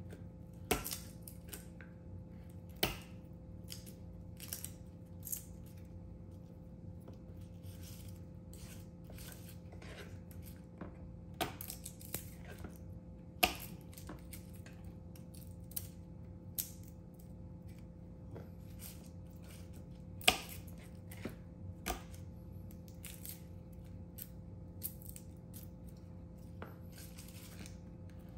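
Garlic cloves being prepared by hand in a kitchen: irregular sharp clicks and taps, a handful of them louder, over a steady low hum.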